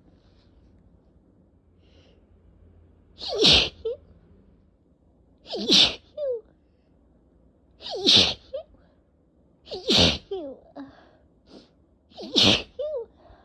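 A person sneezing five times in a row, about every two to two and a half seconds, each sneeze followed by a short voiced sound: an allergic sneezing fit, set off by cats.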